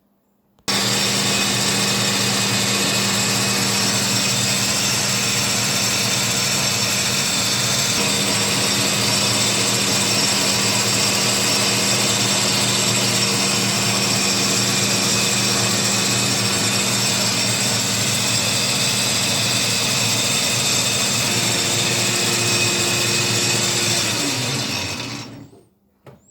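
Boxford lathe with a 240 V electric motor running: it starts abruptly about a second in and runs steadily with a hum and whine. Near the end it is switched off and spins down with a falling pitch.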